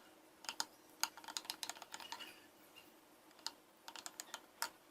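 A spoon clinking lightly against a glass while honey and warm orange juice are stirred: a dozen or so faint, irregular clicks with short pauses between them.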